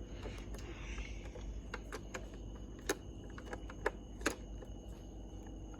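Light, irregular clicks and taps of a small tool working against the plastic shell of a Nerf blaster while a tiny screw is picked out, with a couple of sharper clicks about three and four seconds in.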